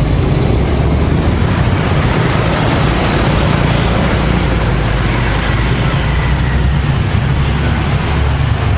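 Steady street traffic noise: a continuous low motor rumble of passing vehicles with a broad hiss over it.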